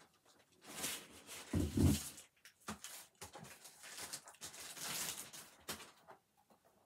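Rustling and rubbing handling noise as graded comic slabs and their packaging are moved about, with a dull thump about two seconds in.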